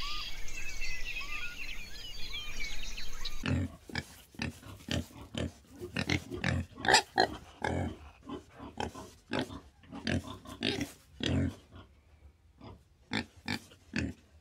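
Birds chirping quickly for the first few seconds, then, after an abrupt cut, an animal grunting in a rapid, irregular run of short grunts, about two or three a second.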